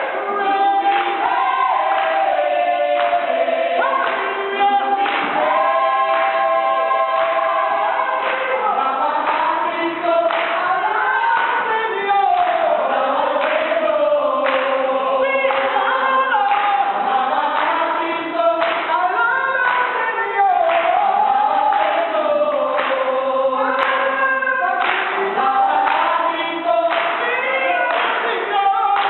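A church worship group singing together, several voices holding long notes over a steady beat.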